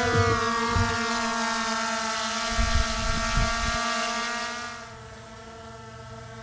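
Small boat outboard motor running at a steady speed on an inflatable dinghy, with the rush of wind and water over it; about five seconds in the rush falls away and the motor runs on more quietly. A few low thumps of wind on the microphone.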